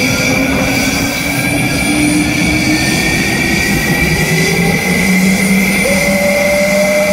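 Dassault Rafale fighter jet starting up: a loud, steady turbine whine, its tones slowly rising in pitch, with one tone stepping up about six seconds in as the engine spools up.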